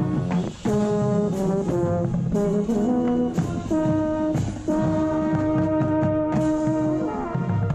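Marching band brass playing loud sustained chords that change every second or so, with a euphonium close by and loudest, and percussion hits underneath. The band cuts off about a second before the end.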